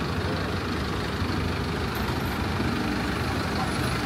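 City bus engine running steadily, with a continuous low rumble of traffic and road noise.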